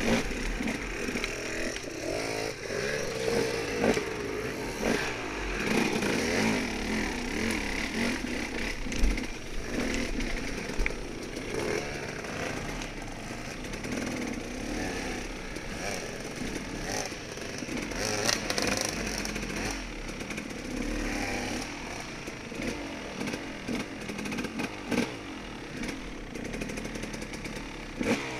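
Dirt bike engine running while riding through the woods, its pitch rising and falling as the throttle is worked on and off, with scattered sharp knocks and clatter.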